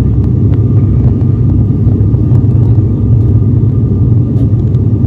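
Steady drone of an ATR 72-600's twin turboprop engines and propellers in flight, heard inside the passenger cabin, with the rumble strongest in the low end.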